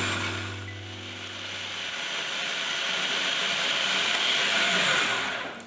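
Food processor running, its blade whirring a wet mix of onion, egg and water. A low hum fades early on, then the whirring noise builds steadily and stops just before the end.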